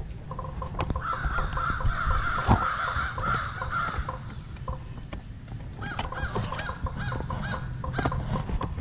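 Harsh animal calls: one long rasping cry lasting about three seconds, then a run of short calls at about two a second near the end.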